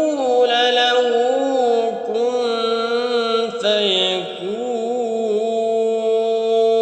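A man reciting the Quran in Arabic in slow, melodic tajweed style, the voice drawn out in long gliding, wavering notes with a steady tone held beneath.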